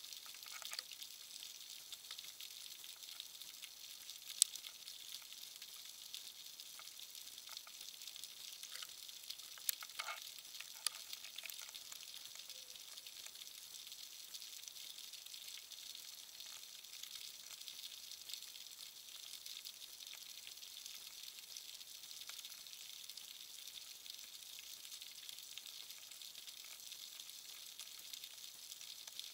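Underwater crackle: a faint, steady frying-like hiss with a few scattered sharp clicks, the loudest a little after four seconds in and another cluster around ten to eleven seconds.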